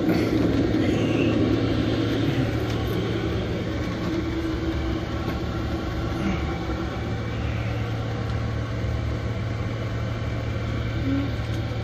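Chinese 5 kW diesel air heater running, a steady hum from its blower fan and burner.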